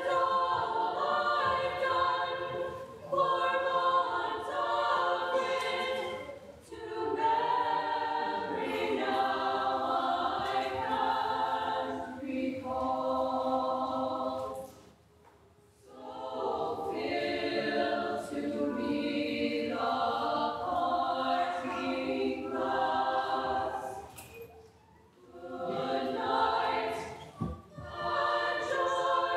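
Women's choir singing in several parts, in long sung phrases broken by short pauses about every eight to ten seconds.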